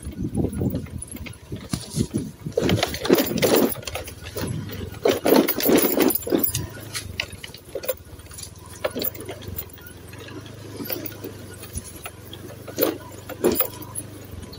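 Car being driven slowly over a rough, unpaved road: a steady low engine hum under irregular knocks and rattles from the bumps, with two louder, rougher stretches a few seconds in.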